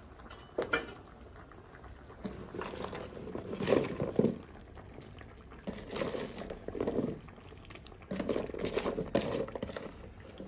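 Chunks of cut carrot, potato, onion and scallion dropping by the handful from a plastic bowl into a pot of simmering curry broth, splashing and plopping in several bouts.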